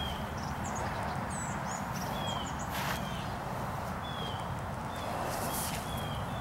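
Outdoor ambience: birds calling with short falling chirps every second or so, and some higher twittering, over a steady rustling hiss. Two soft knocks or footfalls come about three seconds in and again near the end.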